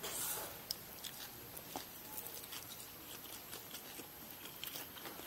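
Soft mouth sounds of a person eating fried rice vermicelli: a short slurp as a mouthful of noodles goes in, then chewing with small wet clicks.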